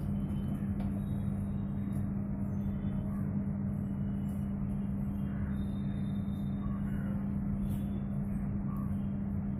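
LG MS1911HE microwave oven running with a steady, even hum. Its cooling-fan motor, just greased and oiled, runs without the loud droning noise it had.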